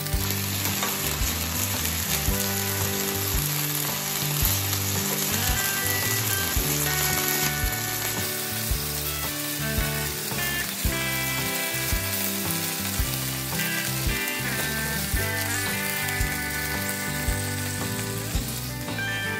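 Marinated beef steaks sizzling steadily on a hot ridged grill pan, with background music playing over it.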